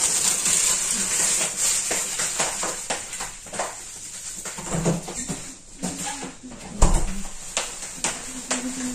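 Kitchen handling noise: a hiss of running water or a rustling plastic bag in the first couple of seconds, then scattered knocks and clicks, with one heavier thump about seven seconds in.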